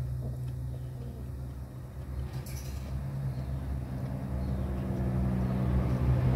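A motor vehicle's engine running with a low steady hum, drawing nearer and growing steadily louder.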